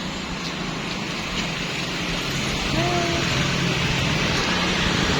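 Steady hissing background noise with a low hum that swells slightly, and a brief faint pitched call about three seconds in.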